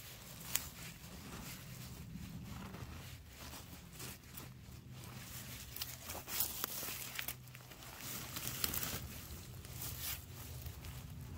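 Rustling and crackling of someone moving and working on the forest floor litter, with scattered sharp snaps and clicks over a low steady rumble.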